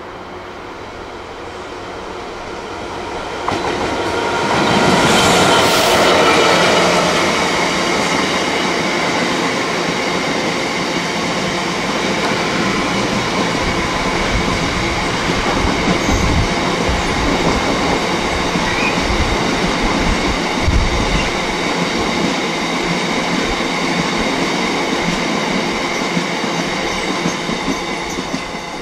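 Class 66 diesel freight locomotive passing at speed, loudest about five seconds in. A long rake of box wagons follows, rolling by with clattering wheels and a steady high ringing, and a few heavy low thumps from the wheels around the middle.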